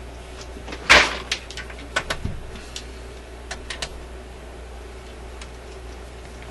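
Test equipment being handled on a workbench: a loud knock about a second in, then a quick run of sharp clicks and a dull thud, and a few more clicks a little later, over a steady low hum.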